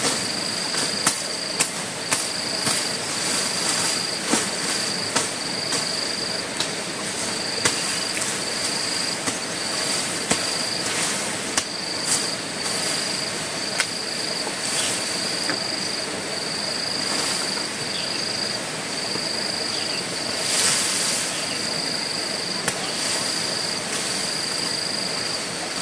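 Insect chirring in a steady run of high-pitched pulses, about one a second, with scattered sharp knocks at uneven intervals.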